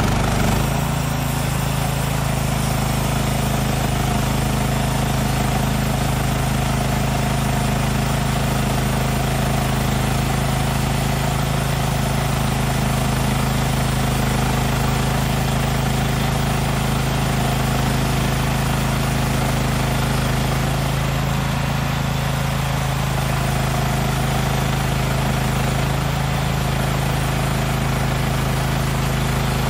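Small gas engine of a Woodland Mills HM126 bandsaw sawmill running steadily at full throttle as the band blade cuts slowly through a cedar log. The blade is dull, which slows the cut.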